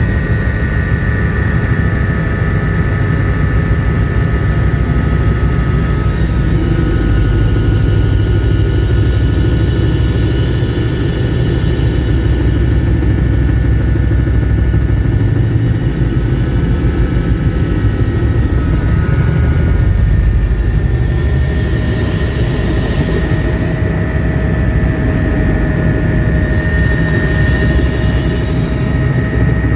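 Helicopter rotor and engine noise heard from inside the cabin: a steady, loud, heavy rumble with a few held tones and a thin high whine over it.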